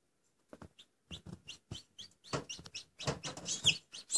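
A chick hatching in an incubator (Black Australorp x Barred Rock cross) peeping rapidly and repeatedly while it works its way out of the shell, mixed with short tapping sounds. The high, short peeps start about half a second in and come thicker toward the end.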